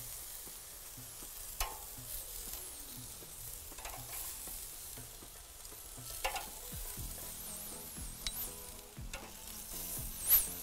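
Chicken kebabs sizzling on a hot gas grill, with metal tongs clicking sharply a few times as pieces are lifted onto a serving platter.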